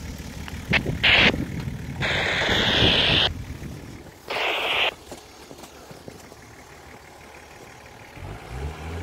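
Off-road vehicle engine running low and steady, with three short bursts of hissing noise about one, two and four seconds in; the middle burst is the longest.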